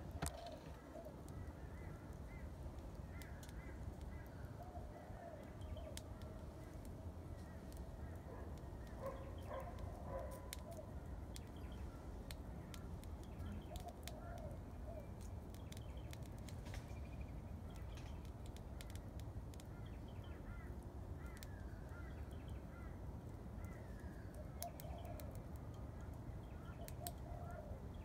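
Birds calling on and off, some in short falling calls, over a low steady rumble. Scattered sharp crackles come from a small fire of sticks and paper burning low in a kettle barbecue.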